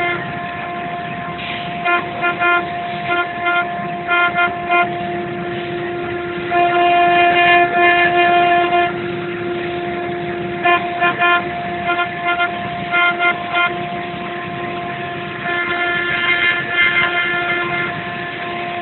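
Omni cylinder CNC router's spindle running with a steady whine while a fine engraving bit carves relief into a turned wooden column on the rotary axis. Louder, rougher stretches come and go, strongest about seven to nine seconds in and again about sixteen to eighteen seconds in.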